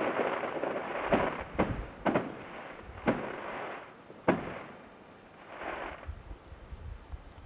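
Fireworks display heard from about a mile away: a run of sharp shell bursts, roughly one every half second to second, over a crackling hiss. The last loud bang comes about four seconds in, then the crackle fades away with one softer hissing swell.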